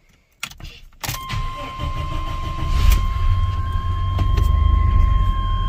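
Chevy S10 pickup engine started for the first time after a throttle position sensor replacement: a click of the ignition key, then about a second in the engine catches and settles into steady running, growing louder a couple of seconds later. A steady high-pitched tone sounds along with the engine.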